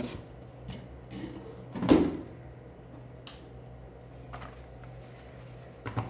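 Cardboard packaging and bubble wrap being handled while a wrapped unit is lifted out of its box: scattered rustles and small clicks, with one loud thump about two seconds in and a sharp knock near the end.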